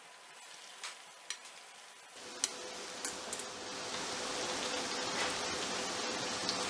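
Breadcrumb-coated potato and chicken cutlets shallow-frying in medium-hot oil in a pan. The sizzle is faint at first, with a few light clicks, then about two seconds in becomes a louder, steady sizzle that keeps building.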